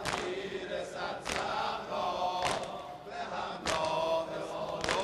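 A congregation of mourners chanting a Muharram noheh refrain in unison. The chanting is punctuated by a sharp unison chest-beat (sineh-zani) about every 1.2 seconds, keeping the dodameh beat.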